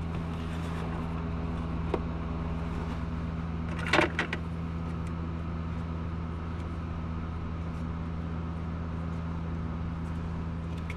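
A steady low hum throughout, with a short cluster of plastic clicks and rattles about four seconds in as the cabin air filter is handled and seated in its plastic housing behind the glovebox.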